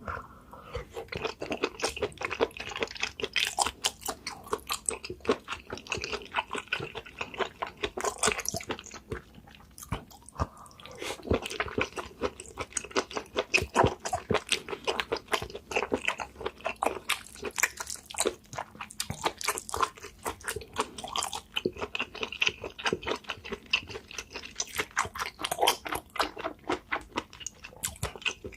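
A person chewing and biting spicy seafood up close, with a fast run of wet clicks and smacks and a brief lull about ten seconds in.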